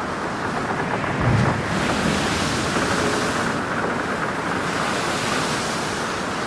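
A ship in heavy seas: waves wash and break against the hull, with wind on the microphone. There is a dull low thud about a second in, then a surge of hissing spray.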